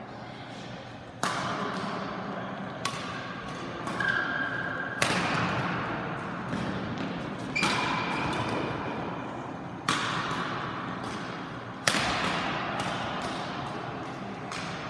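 Badminton rally: rackets striking the shuttlecock in sharp cracks about every one to two seconds, seven or so loud hits, each ringing on in the echo of a large sports hall.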